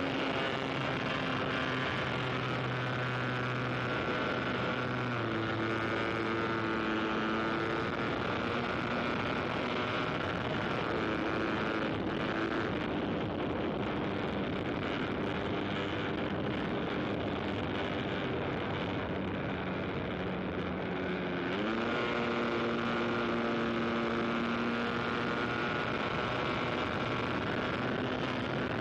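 Engines of small aircraft in flight, more than one running at once at steady speeds. About 21 seconds in, one rises sharply in pitch as it speeds up.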